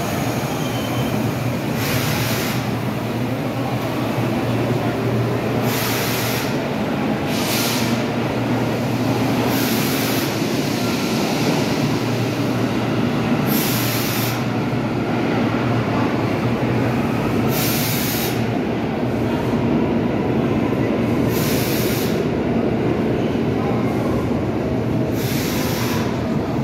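Vintage R1/R9 subway train standing at a station platform, with a steady low hum and short hisses every few seconds.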